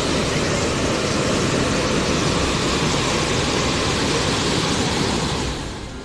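Fast-flowing floodwater rushing through a flooded street: a steady, loud rushing noise that fades out near the end.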